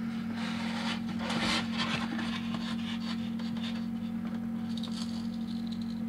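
Square push blade of a small titanium folding knife scraping and gouging into a thin sheet of balsa wood, several rough scraping strokes, strongest in the first two seconds, over a steady low hum.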